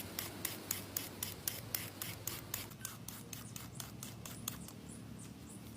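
Quick, repeated scraping strokes on a fish during cleaning, about four a second, growing fainter and sparser after about three seconds.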